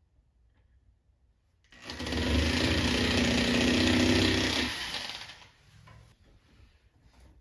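Black+Decker electric drill boring a hole into drywall for a wall anchor. The motor starts about two seconds in, runs steadily for about three seconds and then winds down.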